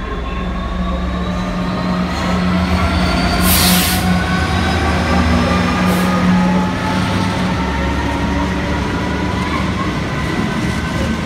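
British Rail Class 66 diesel-electric freight locomotive, with its two-stroke EMD V12 engine, running past at low speed hauling empty flat wagons. A steady deep engine drone is heard under a faint rising whine, with a short hissing burst about three and a half seconds in and a briefer one at about six seconds.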